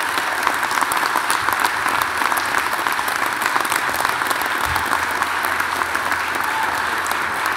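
Large audience applauding steadily in a standing ovation, a dense, even clatter of many hands clapping.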